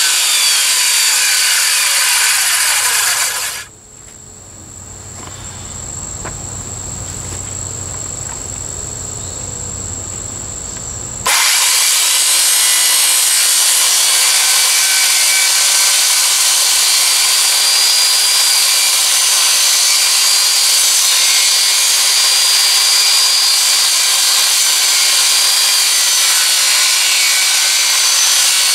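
Circular saw ripping a 2x4 lengthwise, its blade and motor running steadily under load. About 3.5 seconds in the cut sound drops away to a much quieter stretch, and about 11 seconds in full-power sawing resumes abruptly and runs steadily on.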